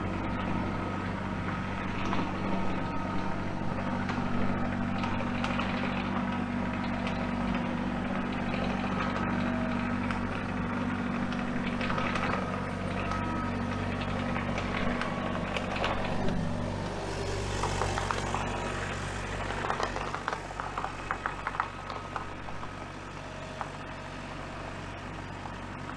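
Kubota KX033-4 mini excavator's diesel engine running steadily, its note shifting about two-thirds of the way through, with scattered metallic clanks and rattles after that.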